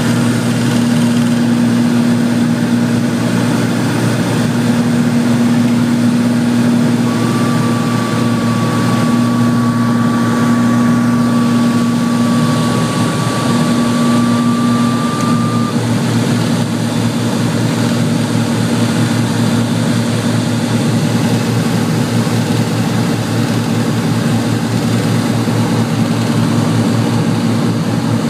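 Light propeller aircraft's engine droning steadily, heard from inside the cabin on approach to land. A thin, steady high tone sounds for several seconds in the middle.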